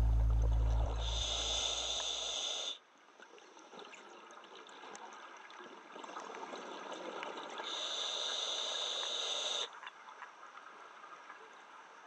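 A scuba diver breathing through a regulator underwater: air hisses through it twice with a high whistling edge, each time for about two seconds, and faint bubbling crackle lies between the breaths. Background music fades out in the first three seconds.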